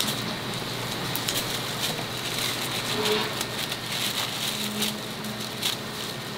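Thin plastic gloves and plastic bags crinkling and rustling as they are handled, in many short crackles over a steady background hiss.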